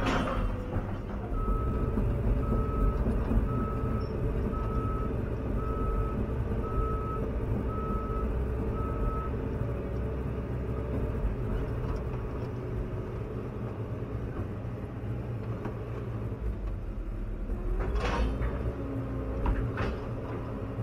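Caterpillar 316EL excavator's diesel engine and hydraulics running steadily, heard inside the cab. An electronic warning beep repeats about twice a second, starting about a second in and stopping about nine seconds in. Sharp knocks come at the very start and again about eighteen seconds in.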